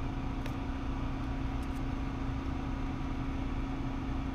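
Steady hum of a running electric motor, one constant pitch over a low rumble, with a couple of faint light clicks in the first two seconds.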